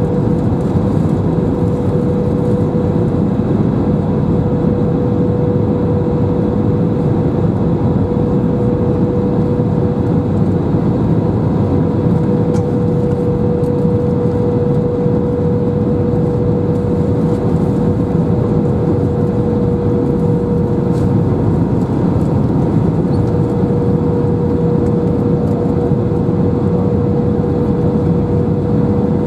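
Airbus A319 cabin in flight: a steady engine and airflow rush, with a steady whine running through it that fades for a moment about twenty seconds in.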